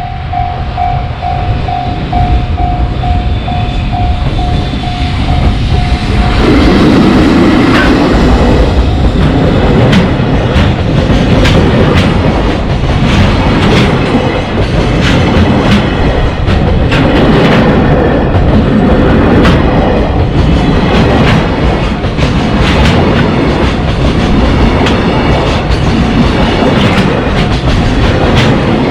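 A railway level-crossing warning bell rings with a steady, pulsing tone. About six seconds in, a freight train arrives and passes loudly, its wheels clicking in a steady clickety-clack over the rail joints.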